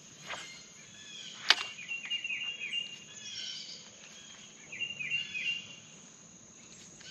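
Birds chirping and calling in short, repeated phrases. A few sharp clicks come through, the loudest about a second and a half in.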